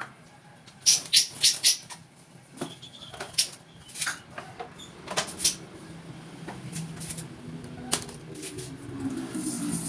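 Caged songbird moving about: a run of sharp clicks and knocks, with wing flutters, a cluster of four about a second in and more scattered after. A low rustling builds in the last few seconds.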